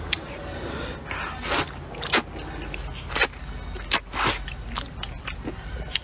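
Close-up eating of sweet potato vermicelli: a few loud slurps of the noodles between quieter chewing, with sharp lip smacks in between.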